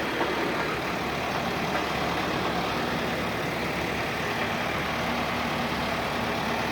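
Road roller's diesel engine running steadily.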